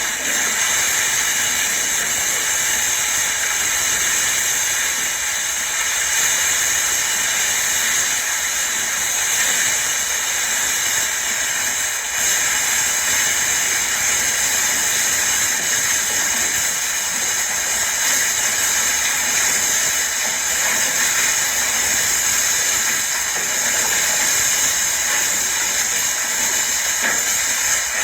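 A steady, high-pitched hiss.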